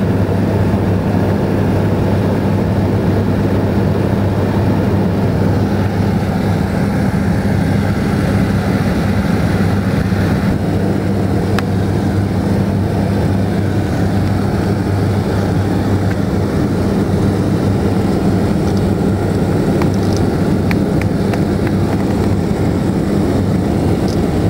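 Propeller engine of a small high-wing skydiving aircraft, heard from inside the cabin: a loud, steady drone with a constant low hum that does not change in pitch.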